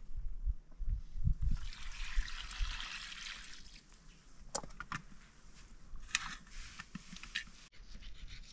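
A brief rush of water lasting about two seconds, among low thumps, followed by a few sharp clicks and knocks.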